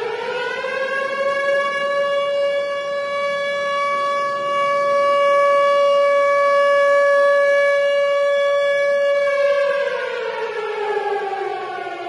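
Tornado warning siren: its pitch finishes rising about a second in, holds one steady, loud wail, then starts winding down and falling in pitch near the end.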